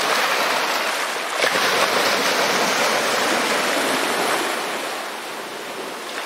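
Small waves breaking and washing up over a pebble beach, the wash loud for the first few seconds and easing off near the end.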